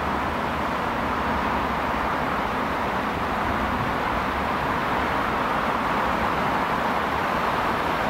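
ED4M DC electric multiple unit approaching, a steady rumbling running noise that grows slightly louder near the end.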